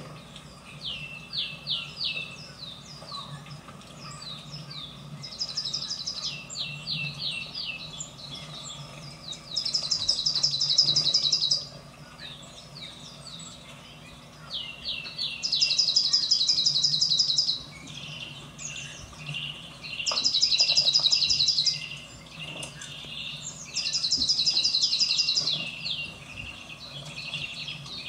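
Wild songbirds at a winter feeder, heard from a television's soundtrack: repeated short down-slurred chirps, broken by four loud, rapid trills of about two seconds each.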